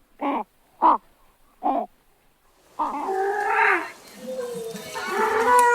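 Pelican calls: three short pitched calls about a second apart, then, from about halfway, longer calls overlapping one another.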